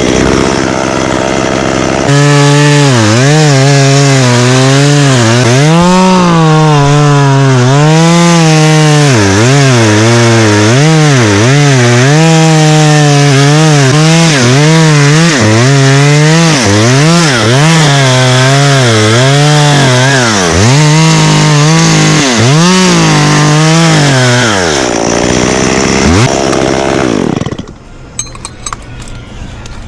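Two-stroke chainsaw running at high revs and cutting into wood, its engine pitch repeatedly dipping and recovering as the chain bogs under load. The saw stops near the end.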